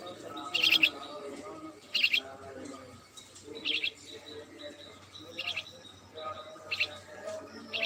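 A small bird chirping: six short, high chirps repeated every second or two.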